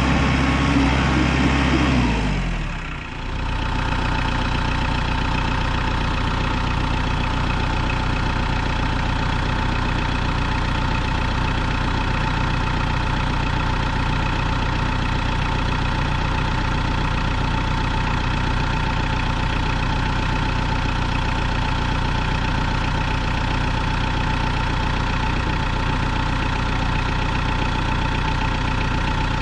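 Tractor engine running steadily; about three seconds in the sound dips briefly, then the engine settles into an even run.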